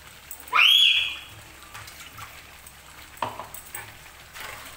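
Quiet scraping and clicking of a spatula stirring spiced chicken in a frying pan, with one loud, short high-pitched squeal about half a second in that rises sharply and then holds steady.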